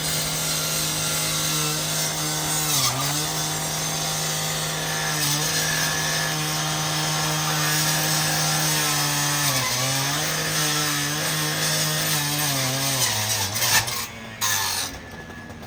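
Gas-powered saw running at high speed, its pitch dipping as it bogs down under load while cutting about three seconds in and again near ten seconds, then sagging and stopping near the end.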